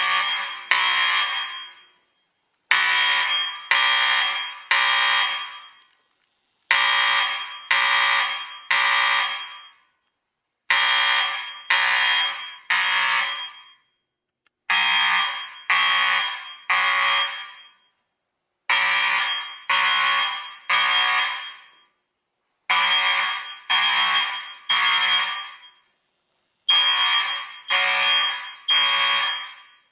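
Fire alarm sounding its temporal-three evacuation code: groups of three blasts, repeating about every four seconds. It was set off by pulling a manual pull station.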